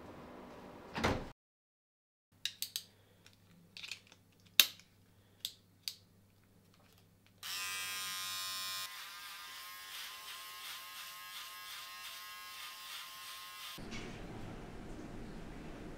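Handheld electric trimmer switched on about seven seconds in, buzzing steadily: loud for the first second and a half, then softer. Before it, a few sharp clicks.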